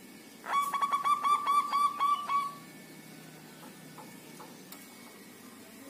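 Zebra dove cooing: a quick run of about nine short staccato notes ending in one longer drawn-out note, lasting about two seconds.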